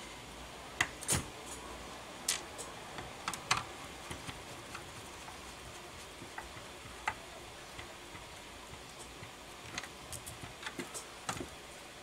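Irregular small clicks and taps of a plastic DVR case and small parts being handled on a workbench, some coming in quick clusters.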